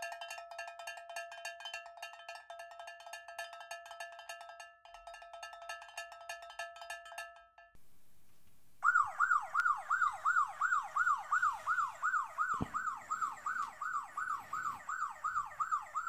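A fast run of ringing, bell-like dings on a few fixed pitches, with a brief break about five seconds in. At about nine seconds an electronic yelp siren starts, its pitch sweeping up and down about twice a second.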